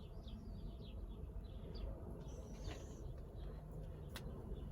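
Faint bird chirps, a string of short calls over a low steady hum, with a brief higher whistle midway and a single sharp click about four seconds in.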